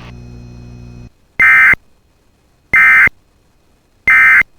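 Emergency Alert System end-of-message signal: three short, identical bursts of buzzy digital data tones, a little over a second apart, marking the end of the alert. Before them a steady hum cuts off about a second in.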